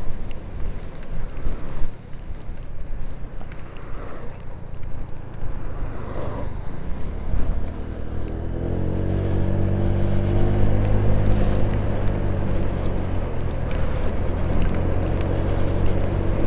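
Honda PCX125 scooter's single-cylinder four-stroke engine and wind rush, heard from inside a motorcycle helmet. About halfway through, the engine note comes through clearly, rising a little and then holding steady as the scooter pulls away.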